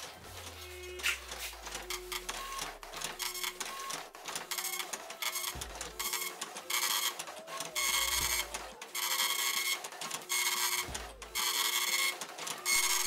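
Dot-matrix printer printing text line by line: the print head buzzes across the paper in a string of passes about a second apart with short pauses between. The passes grow longer and louder after about six seconds.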